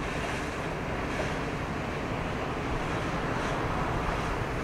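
Steady wind noise on the microphone with washing water and a low rumble underneath.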